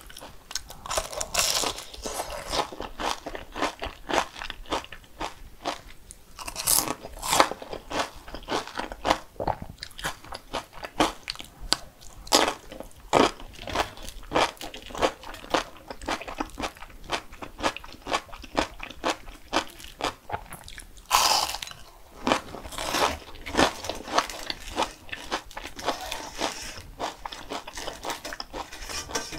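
Crunchy food bitten and chewed: loud crisp crunches every several seconds, with steady crackling chewing between them.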